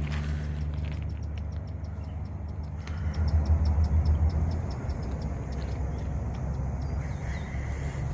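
Low engine rumble of a passing vehicle, swelling about three seconds in and easing off a couple of seconds later, with a steady run of light ticks over it.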